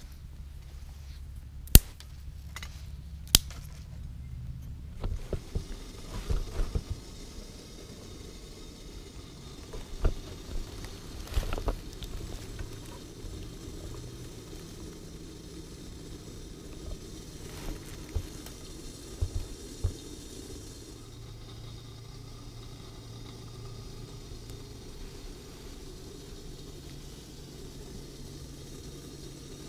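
Wood fire burning in a stainless-steel wood gasification backpacking stove: a steady rush of flame with scattered crackles and pops, two sharp snaps in the first few seconds.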